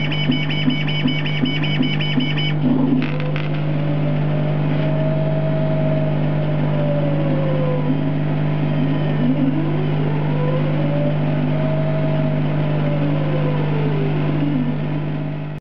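Background music for the first couple of seconds, then a CO2 laser cutter running as its head traces circles in acrylic: a steady hum with a motor whine that rises and falls in pitch twice as the head goes round.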